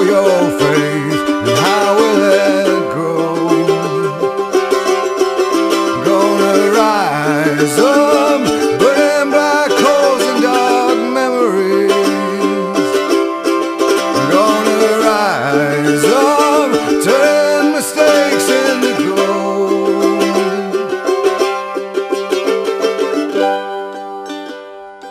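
Background music: a country-style tune on plucked string instruments, with bent notes, fading down near the end.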